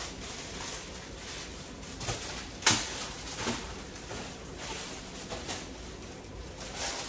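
Household handling noises in a small room: faint rustling and light knocks as things are moved about, with one sharp knock a little under three seconds in.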